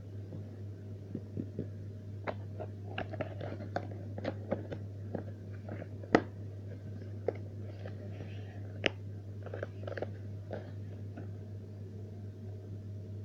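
Irregular small clicks, taps and crunches from objects being handled, a few sharper ones about six and nine seconds in, over a steady low hum.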